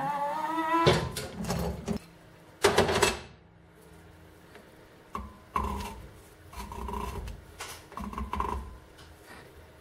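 Rusted steel threads of a WWII German mortar part being unscrewed in a vise: a rising metal squeal as a pipe wrench breaks the joint loose, then a few rough grating scrapes as the piece is turned off its threads by hand.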